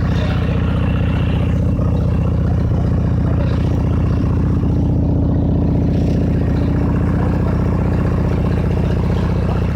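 Harley-Davidson V-twin motorcycle engine idling steadily, a loud, even run of rapid pulses.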